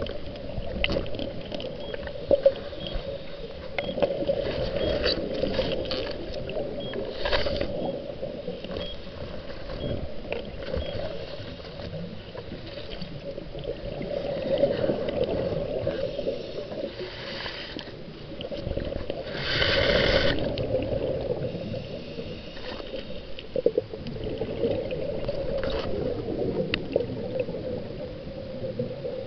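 Muffled underwater sound from a camera held under murky lake water: a steady muffled hum of moving water with scattered clicks, and a louder rush about twenty seconds in.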